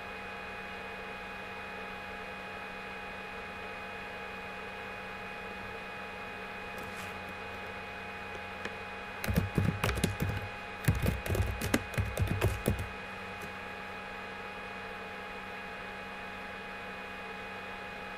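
Steady electrical hum on a voice-chat line, with a flurry of quick clicks and knocks lasting about four seconds in the middle.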